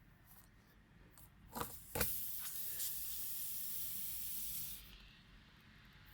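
Two sharp knocks, then air hissing steadily out of the puncture hole in a car tyre for about three seconds before stopping.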